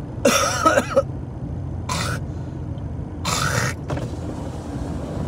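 Steady low road and engine rumble inside a moving car's cabin, with a man's wordless vocal sounds on top: a groan about a quarter of a second in, then two short breathy sounds around two seconds and three and a half seconds in.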